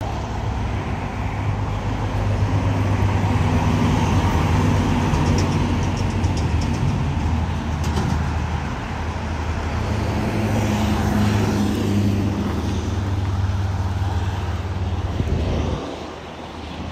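Road traffic: a steady noise of cars and heavier vehicles running on a highway, with the engine hum of passing vehicles rising and falling. It drops away sharply about a second before the end.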